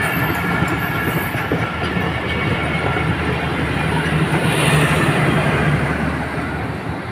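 Pakistan Railways passenger coaches of a departing express rolling past close by, a steady rail rumble with faint wheel squeal in the first couple of seconds. It is loudest about five seconds in as the last coach, the power van, goes by, then fades as the train moves away.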